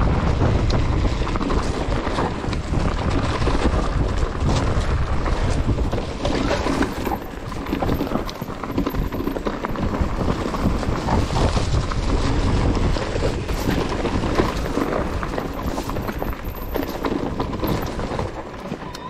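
Mountain bike descending a rough trail: tyres rolling over stones and the bike rattling, with many quick knocks over a heavy low rumble.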